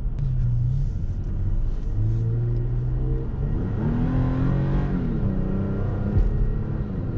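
2017 Toyota Tacoma's 3.5-litre V6 accelerating, its note climbing and then dropping back as the six-speed automatic shifts up, over a steady low road rumble.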